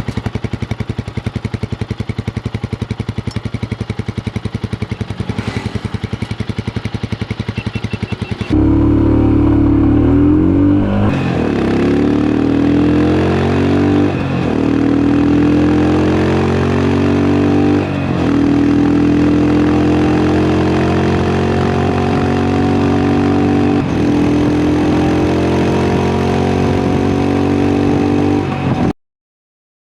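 Royal Enfield Himalayan's single-cylinder engine through its stock exhaust, first idling with a fast, even thump, then revved repeatedly with rising pitch from about a third of the way in; the sound cuts off suddenly near the end.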